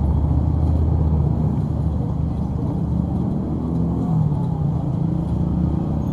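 Steady road traffic: cars and motorbikes passing on a multi-lane city road, with a low engine rumble. One vehicle's engine hum stands out from about halfway through.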